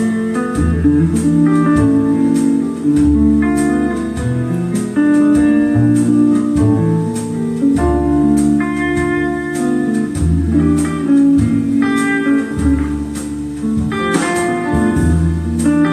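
Recorded music with guitar and a recurring bass line, played through B&W CM9 loudspeakers driven by an Accuphase E-206 amplifier.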